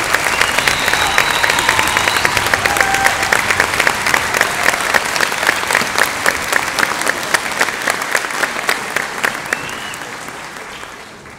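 Audience applauding in a concert hall: dense, steady clapping that thins out and fades away near the end.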